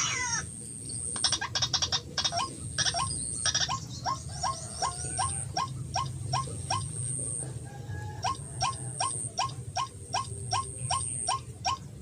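White-breasted waterhen calling a rapid, repeated harsh 'kru-ak', about two calls a second, with a brief break a little past halfway.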